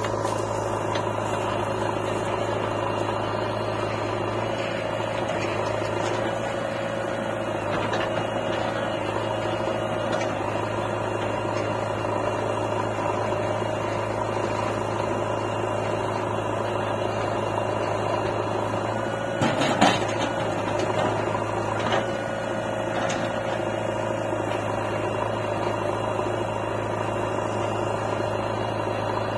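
Diesel engines of a farm tractor and a JCB 3DX backhoe loader running at idle, a steady low hum. A brief knock comes about two-thirds of the way through, and a smaller one a couple of seconds later.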